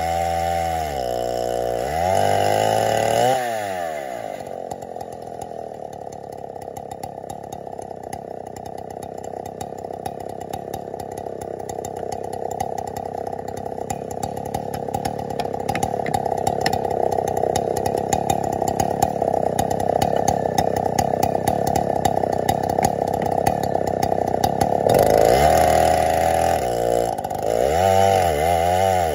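Chainsaw in an Alaskan chainsaw mill ripping lengthwise through an oak round. Early on the engine pitch climbs and then drops as the chain bites. It then holds a long, steady cut that slowly grows louder, and near the end the revs rise and fall again.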